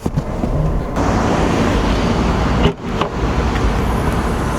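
Steady road traffic noise with a low rumble, dropping out briefly about two and a half seconds in.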